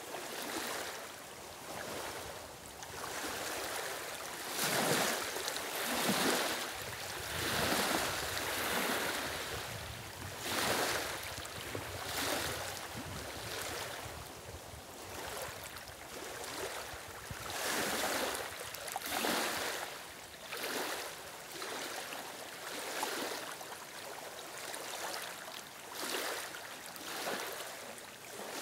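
Small waves lapping and washing over the stones at the edge of a reedy lake, coming in irregular swells every second or two.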